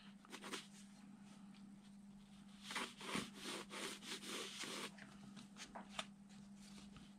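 Pencil lead scratching faintly across drawing paper in a few short strokes, drawing an arc, with a couple of light ticks near the end.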